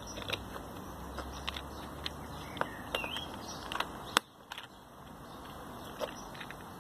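Light plastic clicks and taps as the red screw cap and nozzle of an empty 100 ml plastic bottle are handled and fitted, with one sharp click about four seconds in.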